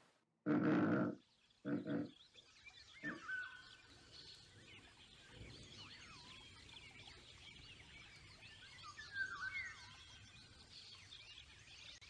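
Two short, loud animal calls, grunting or roaring in character, about half a second in and again just under two seconds in. After them comes a faint background of ambience with a few thin gliding whistles.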